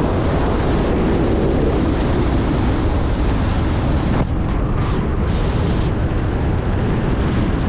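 Steady wind rushing over a helmet-mounted camera's microphone as a parachutist glides under an open canopy close to the ground.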